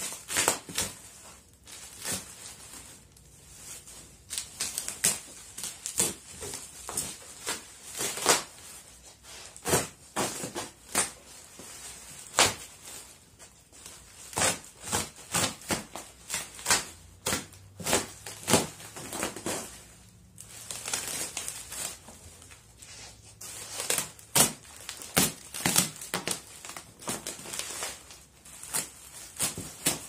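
Bubble wrap and plastic wrap crinkling and crackling as they are cut and pulled off a cardboard box, with many irregular sharp crackles and rustles.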